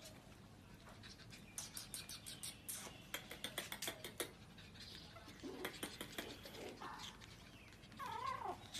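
A litter of Pomeranian puppies yipping and whining: a quick run of short high yips in the middle, then a few thin, drawn-out cries that bend downward near the end.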